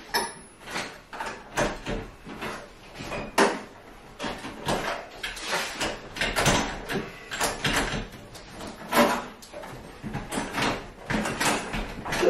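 Irregular knocks, clicks and scrapes of a Worcester 25i combi boiler's hydroblock (water set) and its pipe connections being wriggled and eased out of the casing by hand.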